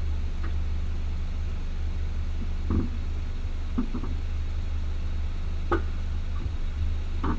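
Front-right coilover suspension of a Renault Megane III (Bilstein PSS9 with H&R springs) creaking and popping, four short sounds one to two seconds apart, over a steady low hum. It is a suspension noise that has come back after two repairs and that the owner has not yet traced.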